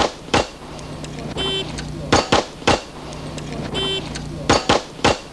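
Electronic shot-timer start beep followed about three-quarters of a second later by a fast string of pistol shots from a competition draw. The sequence happens twice, and a string of shots from a previous run is ending right at the start.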